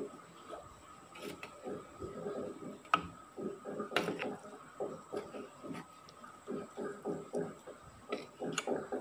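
Metal spoon stirring grated cassava, sugar and coconut milk in a glass bowl: repeated wet stirring strokes a few times a second, with sharp clinks of the spoon against the glass about three and four seconds in.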